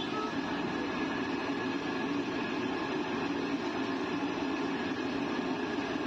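Mawa jalebis deep-frying in a large kadhai of hot oil: a steady, dense sizzle.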